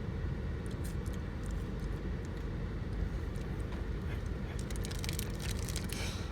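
Steady low rumble of a vehicle running, with faint scattered clicks and crackles over it.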